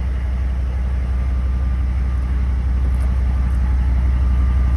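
GM 6.5 L turbo diesel V8 idling, heard inside the truck's cab: a steady low rumble. It is running smoothly on its newly installed replacement injection pump and fluid damper.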